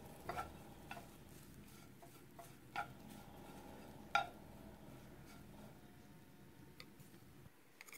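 Wooden spatula and chopsticks stirring shredded vegetarian meat floss as it dry-roasts in a nonstick frying pan. The stirring is faint, with a few light clicks of the wood against the pan, over a low steady hum that drops away near the end.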